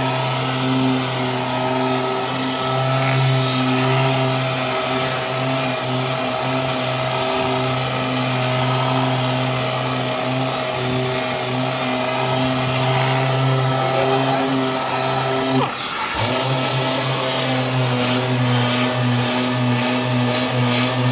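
Power sander with a dust-extraction hose running steadily, sanding down hardened body filler over a repaired dent in a car door panel: a steady hum over an even hiss. There is a short break about sixteen seconds in.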